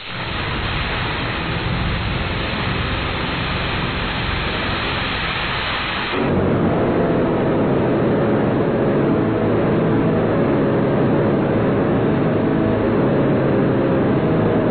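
Loud, heavily distorted static-like noise, dense and unbroken. About six seconds in it changes to a deeper, even louder distorted rumble.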